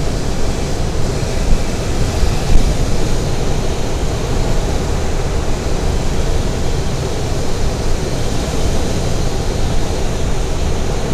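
Steady rushing airflow over a glider's canopy in gliding flight after tow release, with no engine running. It swells briefly twice in the first few seconds.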